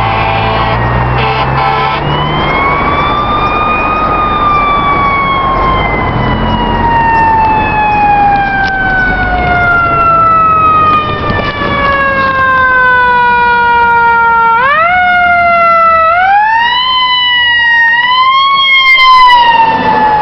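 Federal Signal EQ2B electronic siren on a fire truck, sounding its imitation of a mechanical wail. About two seconds in it winds up, then coasts down in one long falling tone for about ten seconds. Near the end it is wound up again several times in quicker rise-and-fall cycles.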